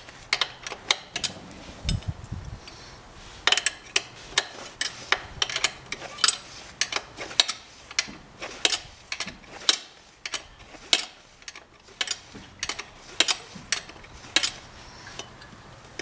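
Hex key working a pin bolt out of a Suzuki DRZ-400SM's rear brake caliper: repeated sharp metallic clicks and clinks, irregular, about one or two a second, as the key is turned and reset in the bolt head.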